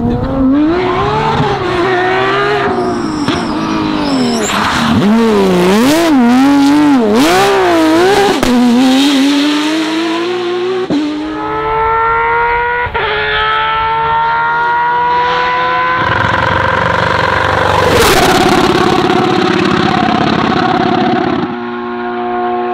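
Porsche 911 GT3 rally car's flat-six engine at full attack. Its pitch swings up and down with the throttle for the first half, then climbs through several rising pulls, each broken off by an upshift. A sharp crack comes about three-quarters of the way through.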